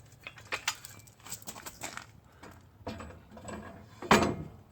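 Metal clicks and knocks from a John Deere sleeve hitch being worked onto the tractor's mounting posts, with a loud clank about four seconds in.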